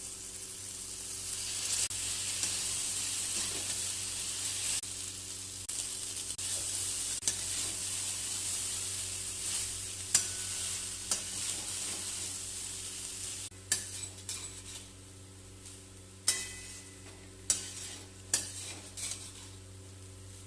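Leftover rice sizzling as it is stir-fried in a pan, with a spatula scraping and knocking against the pan. The sizzle dies down about two-thirds of the way through, leaving a handful of sharp spatula taps over a low steady hum.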